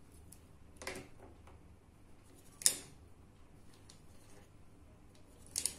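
A few sharp clicks of plastic abacus beads being slid along their rods, the loudest about two and a half seconds in.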